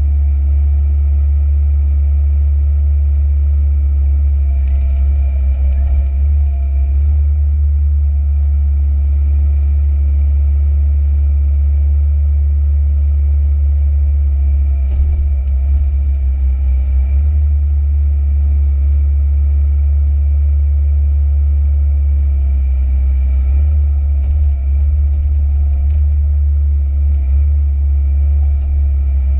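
Komatsu PC138UC excavator's engine and hydraulics heard from inside the cab while the arm and bucket work: a loud, steady, deep drone with faint higher whines coming and going.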